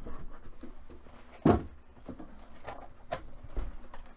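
Cardboard helmet box being handled and turned by hand on a table: rubbing and scraping with a few knocks, the loudest about a second and a half in.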